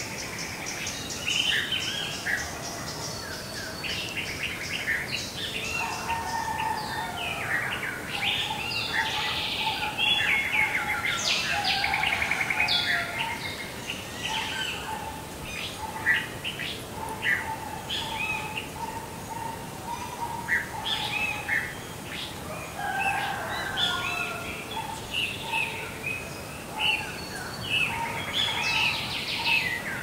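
Many birds chirping and singing over one another in a morning bird chorus, with a thin steady note repeating through much of it.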